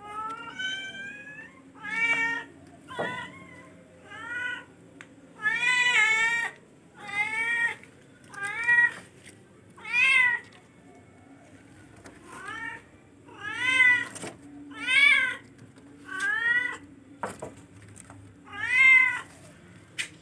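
A charcoal F1 kitten meowing over and over, about fifteen high calls each rising and then falling in pitch, roughly one a second, with one longer drawn-out meow about six seconds in.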